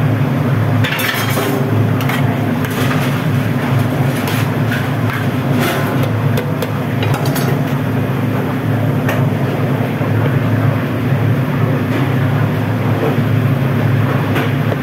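Steady low mechanical drone of a commercial kitchen's ventilation hood fan, with a few scattered knocks and clinks of metal kitchenware.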